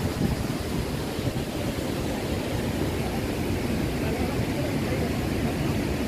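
Steady low rushing noise with no distinct events.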